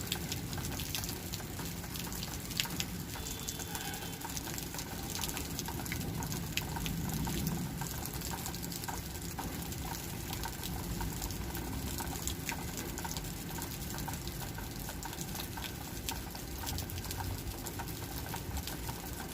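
Steady rain, with many small drops pattering in quick, irregular ticks over a constant hiss.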